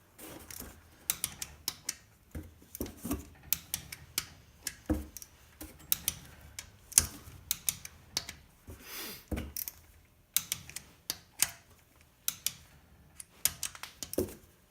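Ratchet-type wrench clicking in short quick runs on the LQ4 V8's rocker arm bolts during a retorque, with scattered sharp knocks of metal tools.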